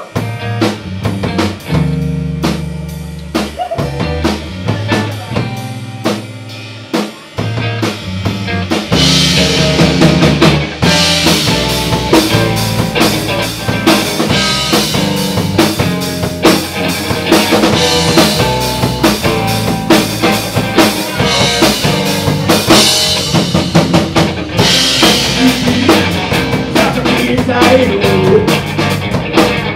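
Live rock band playing on drum kit and electric guitars. It opens sparsely with low held notes and drum hits, then the full band comes in with cymbals about nine seconds in.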